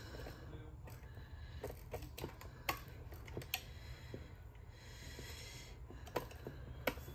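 Scattered small plastic clicks and taps, about half a dozen at irregular intervals, as the cassette door of a Cricket talking doll is worked against its hinge prongs while being fitted into place.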